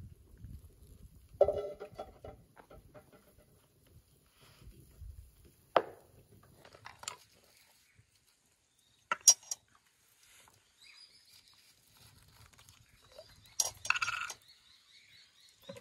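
Tableware being handled while food is served: a few separate knocks and clinks of dishes and utensils, the first with a short metallic ring about a second and a half in and a small cluster of clinks near the end.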